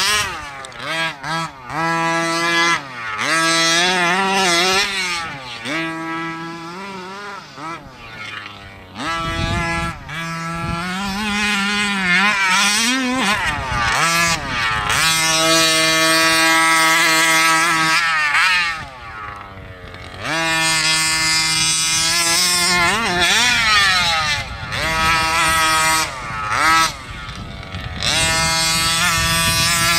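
The small two-stroke gas engine of a 1/5-scale HPI Baja RC buggy, revved hard and eased off again and again as it is driven. The pitch climbs, holds high for a second or two, falls, and climbs again, with a brief drop toward idle about two-thirds through.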